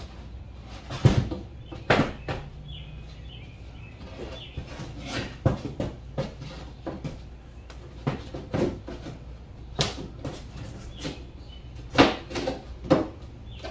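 Irregular wooden knocks and clatters as loose wooden floor panels are set down onto the ledge inside a wooden chicken coop, with the loudest knocks about a second in, around the middle and near the end.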